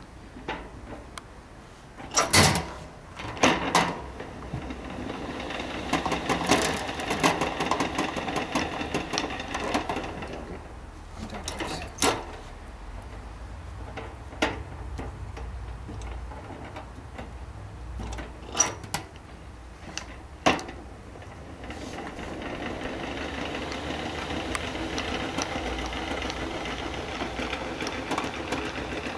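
Three-frame hand-cranked honey extractor being turned to spin honey out of uncapped combs. Its gears whirr in two spells, with a few sharp knocks and clanks in between.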